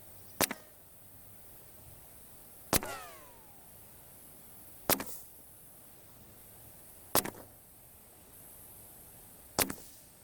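A .25 FX Dreamline Tactical PCP air rifle firing five shots, one about every two seconds, each a sharp crack followed closely by a fainter second knock.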